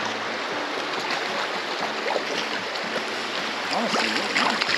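A fast, shallow creek rushing steadily over rocks, with some splashing near the end as a hooked trout is pulled in at the water's edge.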